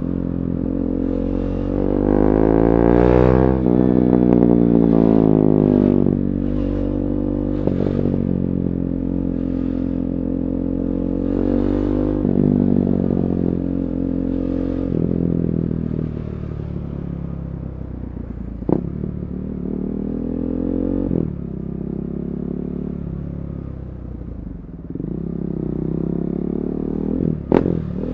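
KTM 390 Duke's single-cylinder engine through an Akrapovic slip-on exhaust with the catalytic converter removed, revving up and easing off repeatedly as the bike is ridden. Two sharp cracks stand out, one past the middle and one near the end.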